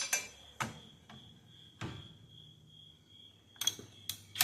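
Metal hand tools clinking: a few sharp separate clicks and taps of a socket, extension and bit being handled, with a steady thin high tone underneath.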